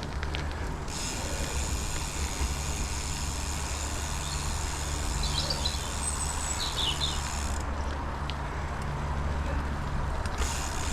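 Gravel bike being ridden, with wind rumbling on the microphone and tyre noise from Goodyear Connector gravel tyres. A brighter hiss comes in about a second in and fades out after about seven seconds.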